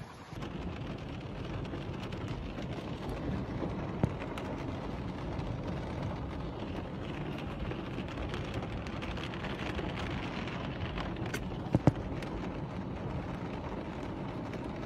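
Steady rushing noise of a muddy flash-flood torrent pouring down a street, with a sharp knock about four seconds in and another pair of knocks near the end.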